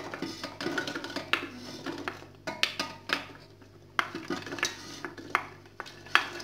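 Fava beans and soaked chickpeas tipped from an enamel bowl into a stainless steel pot: an irregular clatter of beans landing on the metal. A wooden spoon scrapes and knocks against the bowl as it pushes the last of them out.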